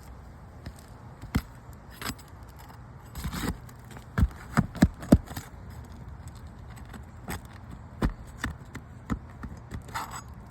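Scattered sharp clicks and taps, with a cluster of louder knocks about four to five seconds in, from handling and stepping on asphalt shingles that have been unsealed for a repair test.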